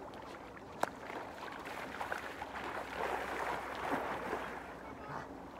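Feet wading and splashing through shallow lake water at the shoreline, building up and loudest in the middle, after a single sharp click less than a second in.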